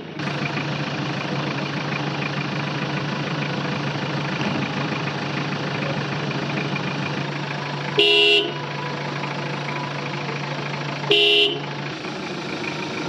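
SUV horn sounding two short honks, each about half a second, about eight and eleven seconds in, to have the gate opened. Under the honks the engine runs at a steady idle.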